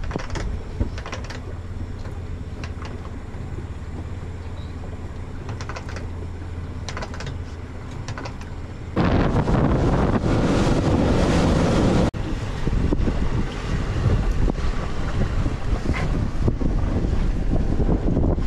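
A boat's engine running at low speed with a steady low hum. About nine seconds in, it switches to the boat running fast: loud wind buffeting the microphone over rushing water and engine noise.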